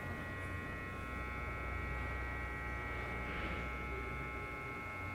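Steady electrical hum: a low drone with several thin, steady high tones above it, unchanging throughout.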